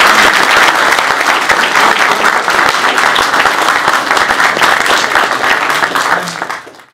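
Audience applauding, many people clapping at once; the applause fades out near the end.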